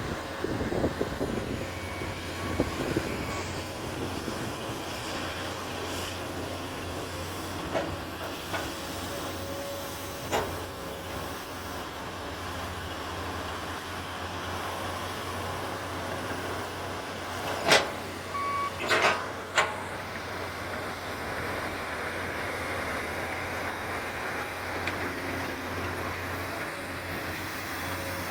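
Komatsu PC200 hydraulic excavator's diesel engine running steadily, with a handful of sharp metallic knocks, the loudest a cluster of three between about 17 and 20 seconds in.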